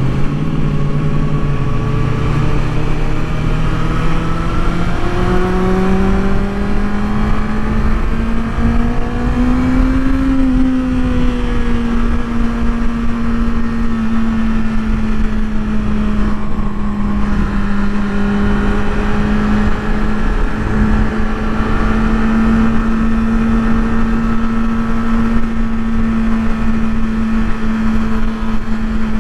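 Engine of a 2024 Kawasaki ZX-6R, a 636 cc inline-four, pulling under way on the road. Its pitch climbs over the first ten seconds and then holds steady at cruise, under a steady rush of wind noise.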